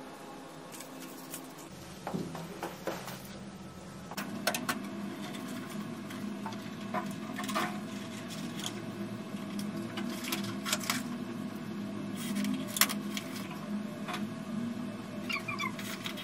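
Rustling and scattered sharp clicks of hanging party decorations (gold fringe curtain and leaf garland) being handled and fastened, over a steady low hum.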